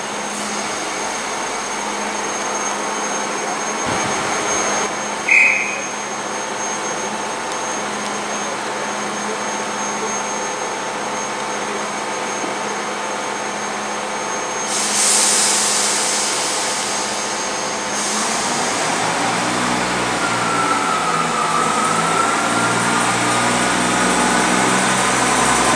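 Class 158 diesel multiple unit standing at the platform with its engines idling, a steady hum with a thin high whine. A short high beep sounds about five seconds in, and a hiss of air follows past the halfway point for a few seconds. In the last several seconds the diesel engines grow louder, with a whine that dips and rises in pitch.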